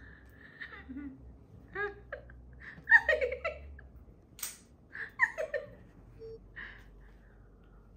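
Soft, breathy giggling and short squeaky voice sounds, with a few sharp clicks in between, the loudest click about four and a half seconds in.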